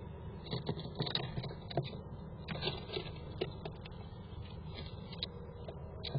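A squirrel's claws scratching and scrabbling on the plywood walls of a nest box as it climbs about, a run of irregular sharp scratches and taps over a steady low hum.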